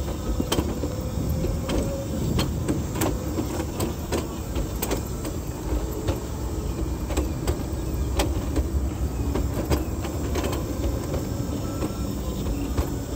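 A wheelchair rolling along a concrete sidewalk: a steady low rumble from the wheels, with frequent sharp clicks and knocks and a faint steady hum.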